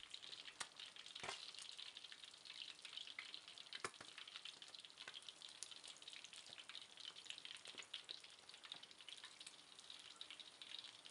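Whole fish shallow-frying in hot oil in a wok, a faint steady sizzle and crackle with a few sharper pops, the loudest about a second and four seconds in. The fish is fried through and golden brown.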